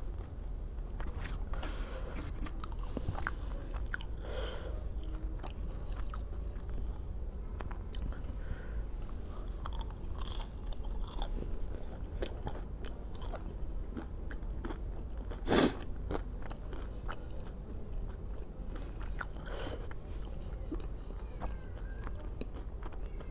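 A person eating close to the microphone: irregular chewing and biting with small crunches. One much louder sharp crunch or clatter comes about fifteen seconds in.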